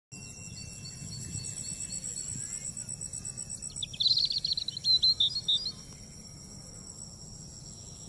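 Insects trilling steadily in high, unbroken tones, with a bird calling in a quick run of chirps about four seconds in, the loudest part, lasting under two seconds.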